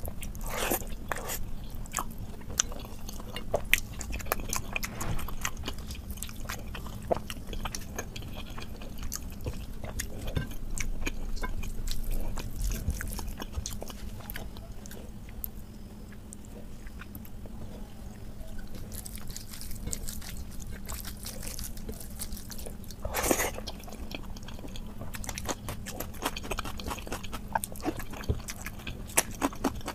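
Close-up eating sounds: fingers squishing and mixing rice with dal on a plate, and chewing with wet mouth clicks and smacks. The clicks come irregularly throughout, with a brief louder burst about 23 seconds in.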